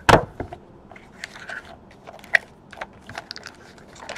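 Cardboard trading-card box being opened: a loud knock of the lid just after the start, then scattered clicks and short crinkling rustles as the foil-wrapped card packs inside are handled.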